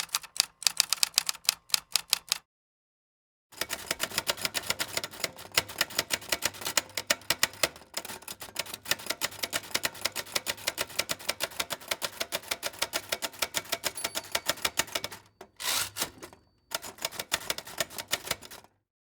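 Rapid typing on keys, many keystrokes a second, in runs broken by short silent gaps: a short burst, a long run of about twelve seconds, a brief dense flurry, then another short run near the end.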